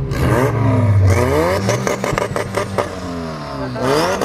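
Car engine being revved in the lot, its pitch climbing and dropping several times, with a run of sharp pops between the revs.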